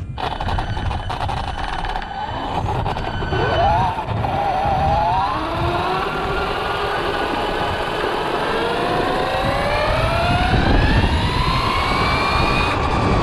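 RC car's motor whining as it drives, its pitch wavering briefly and then climbing steadily as the car picks up speed, over a rumble of knobby tyres rolling on rough broken-tile paving.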